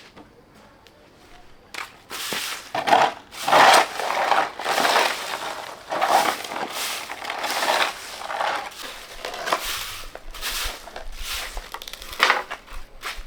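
Repeated crunching and rustling in irregular bursts, starting about two seconds in.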